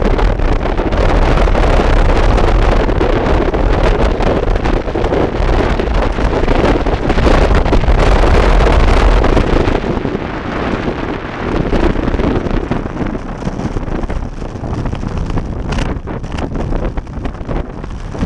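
Wind rushing over the microphone of a bicycle-mounted camera on a fast road-bike descent: a loud, steady, buffeting rush that eases about ten seconds in.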